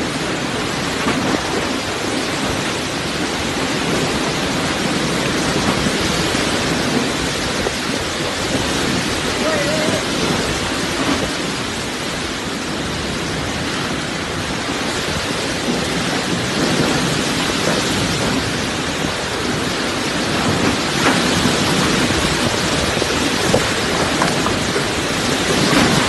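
Heavy rain pouring down in a storm with strong wind, a steady dense hiss, getting a little louder near the end.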